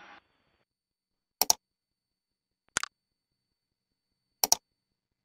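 Three short, sharp clicks about a second and a half apart in the otherwise silent cockpit radio and intercom audio feed.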